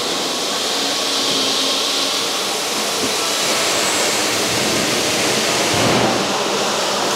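Steady rushing noise of a boat-building fabrication hall, an even hiss with no separate knocks or rhythm.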